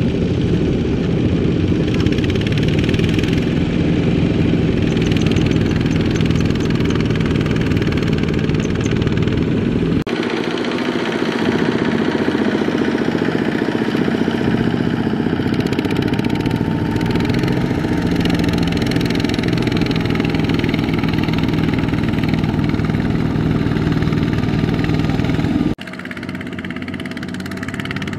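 Single-cylinder diesel engine of a Kubota RT120 walk-behind power tiller running steadily while it hauls a trailer loaded with rice sacks through mud. The sound changes suddenly twice and is somewhat quieter for the last couple of seconds.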